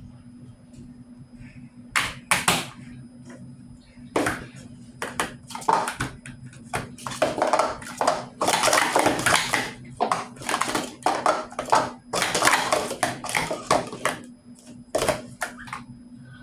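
Rapid clicking and clattering of small hard objects being handled, sparse at first and then dense and fast for several seconds before tailing off, over a steady low hum.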